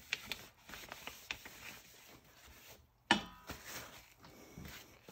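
Gloved hands handling a dye-soaked fabric bundle and paper towels: soft rubbing, rustling and small clicks, with a sharp crackling rip about three seconds in as a piece of paper towel is torn.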